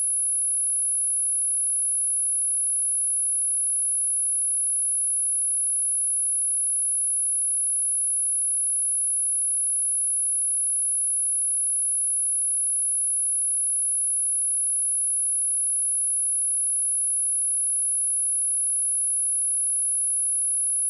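Pure sine-wave test tone at 10567 Hz, one steady high-pitched tone held without change.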